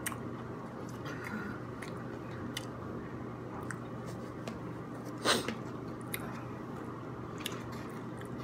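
A person chewing food with scattered small mouth clicks, and one louder, sharper sound a little over five seconds in.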